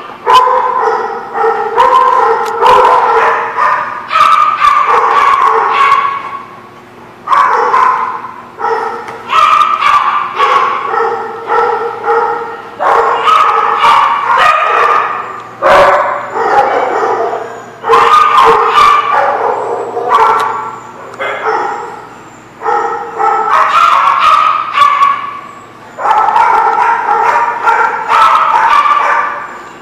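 Dogs vocalizing while they wrestle in play: a steady run of loud, pitched whining yips and barks, each cry lasting a second or two, with short breaks between them.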